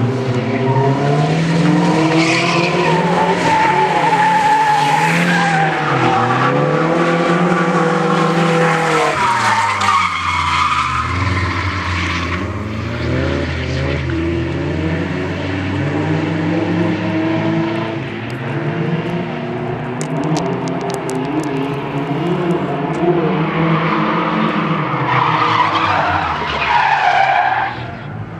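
Drift cars' engines revving hard and falling off again and again as they slide through the turns, with tyres squealing and skidding; a strong tyre squeal comes near the end.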